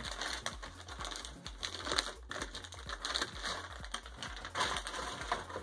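Clear plastic wrapping rustling and crinkling in a quick, irregular run of small crackles as it is pulled off a small boxed device.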